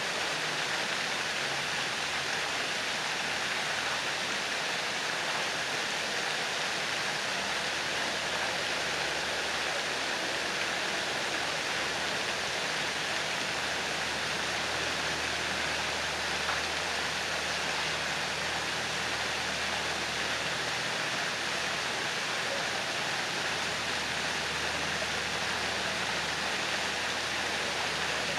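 Ornamental fountain jets falling into a pond: a steady rushing splash of water that does not change.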